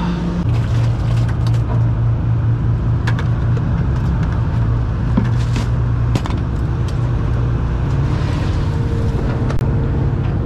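A party boat's engines run with a steady low drone as the boat gets under way. The engine note drops about half a second in and rises again near the end, with scattered clicks and knocks from the deck.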